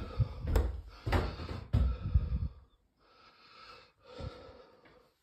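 Footsteps climbing wooden stairs: heavy thumps about twice a second for the first half, then softer steps, with the climber breathing.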